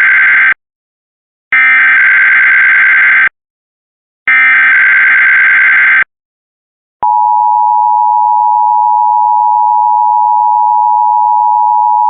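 Emergency Alert System SAME header: the end of one burst and then two more bursts of raspy digital data tones, each under two seconds with a short silence between. About seven seconds in, the steady EAS attention tone starts, opening a required monthly test.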